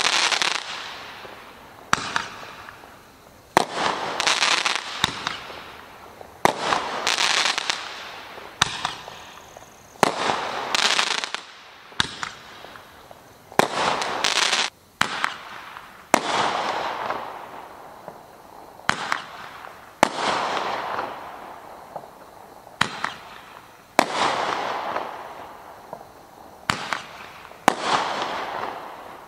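Big Dawg 8-shot Roman candles firing shot after shot, a sharp pop about every one to three seconds. Each pop is followed by a fading crackle from the crackling stars.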